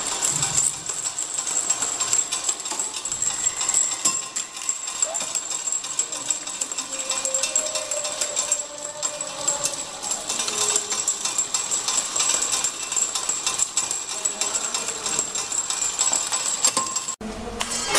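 Automatic ampoule and vial labeling machine running: a dense, fast clatter of small vials on the conveyor and the labeling mechanism, with a steady high-pitched whine over it. The sound drops out briefly near the end.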